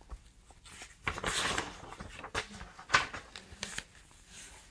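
Paper pages of a hardcover book being turned and smoothed flat by hand: a few short rustling swishes, with a sharp flick of paper about three seconds in.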